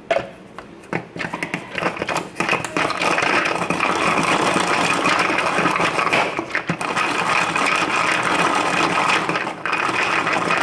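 Electric mini food chopper chopping garlic cloves: a few knocks as it is set going, then a steady motor whine with the blade rattling the garlic from about two and a half seconds in, breaking off briefly twice.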